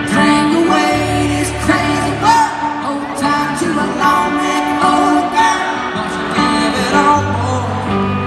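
A live rock band playing at a steady loud level, with electric guitar and a singing voice, heard from the audience in a large arena hall.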